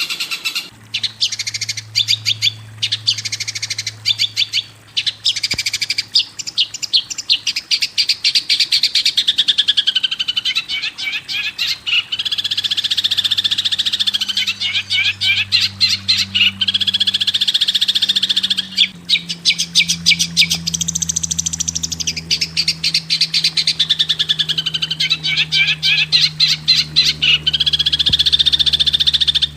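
Songbird song for training caged birds: fast, continuous chirping and trilling, high-pitched, with phrases that sweep up and down in pitch, over a low steady hum that shifts pitch about two-thirds of the way through.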